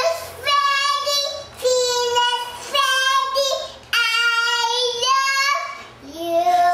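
A young child singing in a high voice, a short phrase of held notes repeated about five times, each lasting about a second, with brief breaths between.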